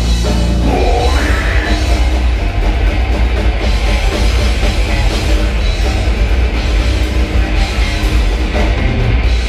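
Loud live heavy metal band playing: distorted guitars, bass and a pounding drum kit, steady and unbroken.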